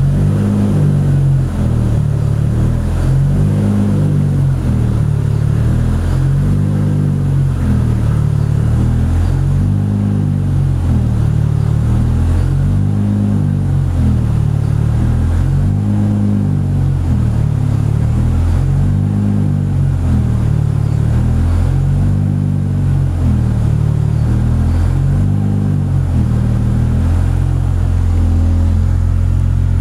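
Toyota Supra engine idling steadily, its note wavering slowly and evenly. The owner says the engine has a rod knock.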